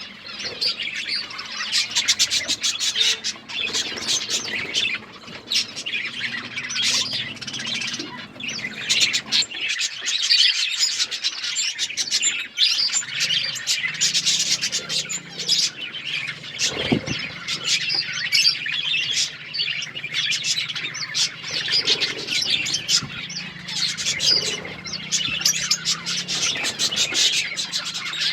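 Several budgerigars chirping and chattering without a break, many quick overlapping calls with the odd squawk.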